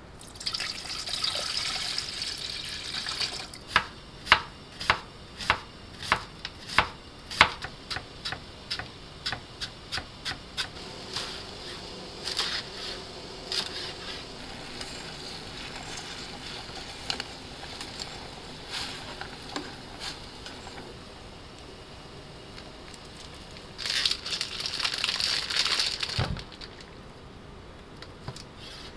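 Chef's knife chopping red leaf lettuce on a plastic cutting board: a run of sharp knocks about twice a second, turning softer and quicker. A rustling hiss comes at the start and again near the end, closing with one low thump.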